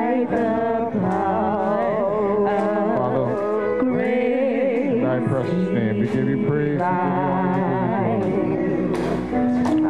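A woman singing a slow hymn with a wavering vibrato into a microphone, over steady held accompaniment chords.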